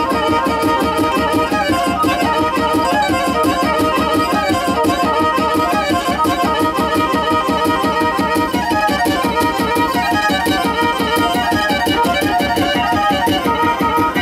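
Black Sea horon dance music: a fast melody over a quick, steady beat.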